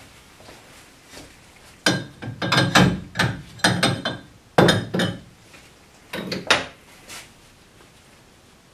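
Handling clatter: a quick, uneven run of knocks and clinks of glassware and other hard objects being moved and set down. It starts about two seconds in, with two last knocks a little past six seconds.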